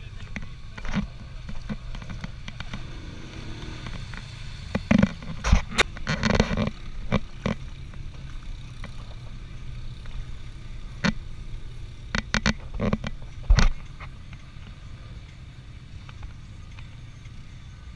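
Off-road vehicle engine idling as a steady low rumble, with clusters of sharp knocks and clatters about five seconds in and again around eleven to thirteen seconds in.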